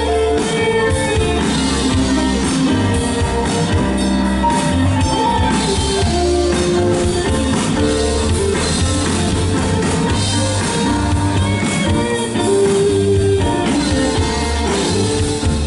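Live rock band playing loud on stage, with drum kit and guitar over a steady bass.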